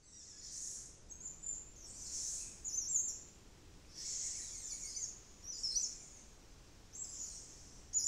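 Rimatara lorikeets (Kuhl's lorikeet) giving high-pitched chirping calls in short repeated bouts, over a faint background hiss.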